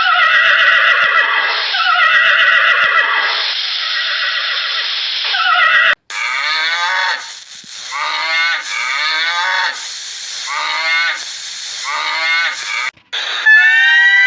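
Horse-like whinnying calls of an equine, in two spliced clips: first a long, high-pitched, wavering call of several tones lasting about six seconds, then after a sudden cut a rhythmic run of short, pulsed calls.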